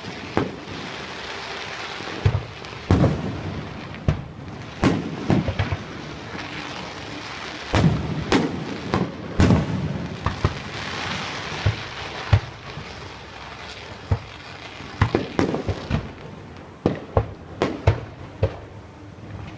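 Aerial fireworks display: a rapid, irregular run of booming shell bursts, some in quick clusters, over continuous crackling.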